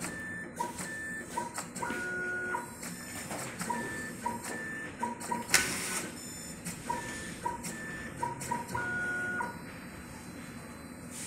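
Jinka A491 contour cutting plotter running as it draws a printed sheet in. Its motors give short, high, steady-pitched whines again and again, with sharp clicks between them and one louder clack about five and a half seconds in.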